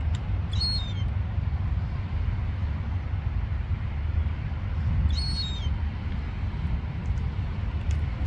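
Two short, high, slightly falling calls from a young gull, about four and a half seconds apart, over a steady low rumble.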